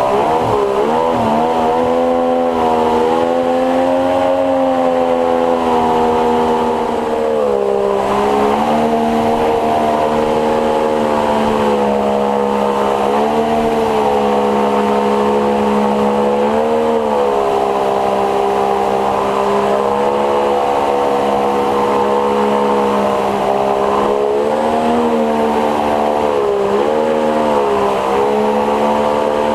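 A 50 hp two-stroke outboard motor fitted with a water-jet unit, running steadily at speed and driving an inflatable boat through shallow water. The revs dip briefly and pick up again several times.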